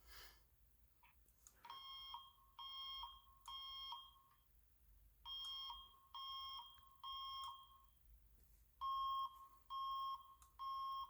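Fire alarm sounding the temporal-three evacuation pattern: three groups of three beeps, each group followed by a pause. Each beep is a steady tone of about half a second, and the last group is louder.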